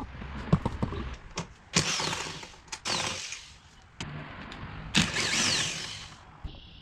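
Cordless impact wrench loosening the 14 mm bolts of a car seat bracket, in three short bursts with a falling whine, among a few light metal clicks.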